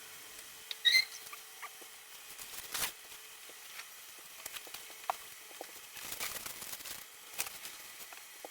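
Scattered light knocks and clicks with a brief squeak about a second in, from a freshly assembled bookshelf being handled and moved into place.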